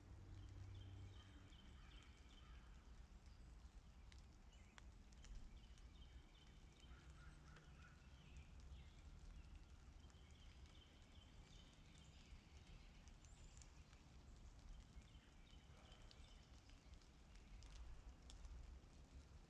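Near silence: faint outdoor ambience, a steady low rumble with faint high chirps coming and going.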